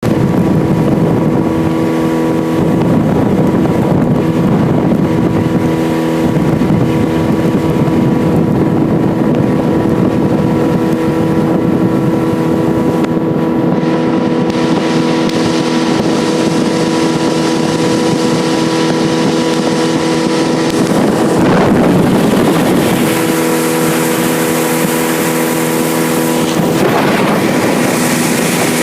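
Boat's outboard motor running at a steady speed while under way, with a steady engine hum, water and wind rushing over the microphone. The wind hiss grows stronger about halfway through.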